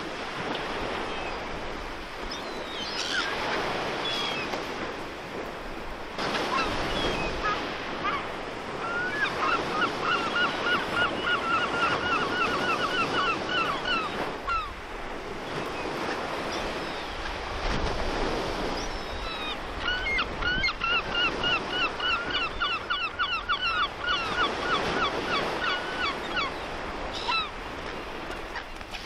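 Sea surf and wind on the microphone, rising and falling in surges. Twice a bird gives a fast run of repeated, evenly pitched calls lasting several seconds each.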